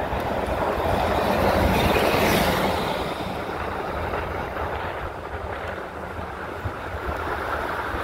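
Buses passing close on a city avenue: engine and tyre noise swells to its loudest about two seconds in as an express coach bus goes by, then settles into steady traffic noise.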